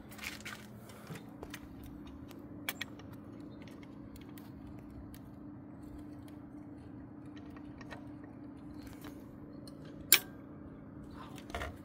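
Small clicks and light metallic knocks of an EGR valve being worked into place against the engine, with one sharp click about ten seconds in, over a steady low hum.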